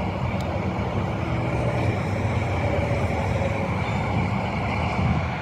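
Steady road and engine noise of a car driving, a constant low rumble without change.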